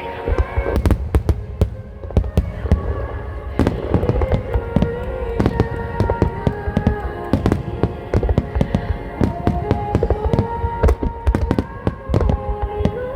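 Aerial fireworks going off in a rapid, continuous barrage of sharp bangs, with music carrying a held melody underneath.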